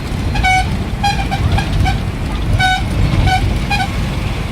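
Vehicle horns honking in short toots, about nine in the first four seconds, over the steady low rumble of road traffic engines.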